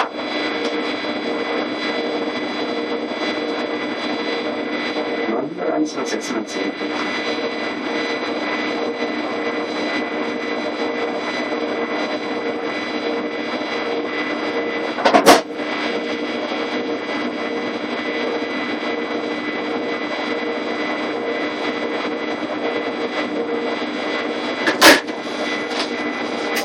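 Steady hum and whine of a standing ET420 electric multiple unit's onboard equipment, heard in the driver's cab, with several steady tones over the noise. Two short sharp clicks, one about halfway through and one near the end.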